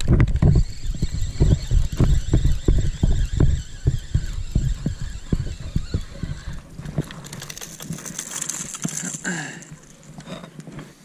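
Spinning reel being cranked to bring in a small speckled trout, with repeated rumbling knocks of handling and wind on the microphone. Near the end, a brief hiss of splashing water as the fish is lifted out.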